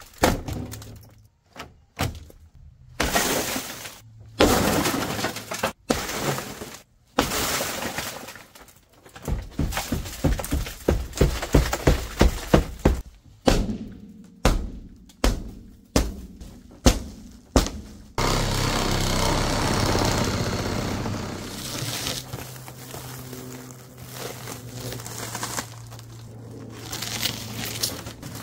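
Car window glass on a 2003 Ford Taurus being smashed out: separate heavy hits, then a quick run of blows at about two a second, with glass breaking and shattering. From about two-thirds of the way in, a steady drone like a shop vacuum running takes over.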